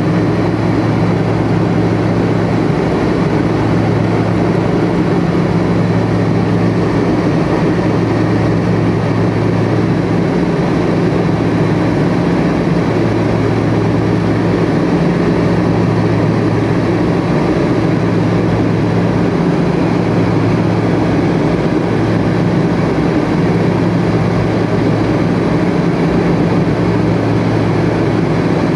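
Cabin noise of a Tupolev Tu-134B-3 airliner in flight: a steady rush of air and engine noise from its two rear-mounted Soloviev D-30 turbofans, under a low hum that swells and fades slowly, about every two seconds.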